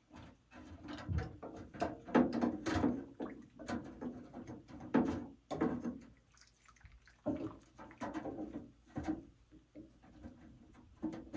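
Stihl 044 Magnum's finned cylinder being worked into a stainless-steel ultrasonic parts cleaner's tank of cleaning liquid: an irregular run of metal knocks, clunks and scrapes against the tank and the crankcase half already in it.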